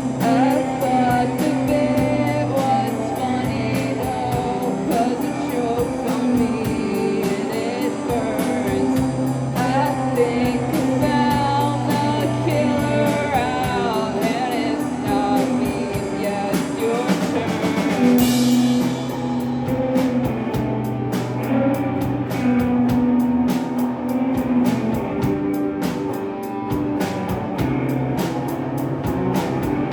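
Live rock band playing a song: drum kit and guitars, with singing.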